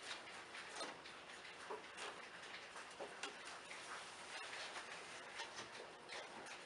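Faint, irregular light clicks and taps as an aftermarket radiator is worked down into the engine bay to seat its mounting pegs in the rubber bushings.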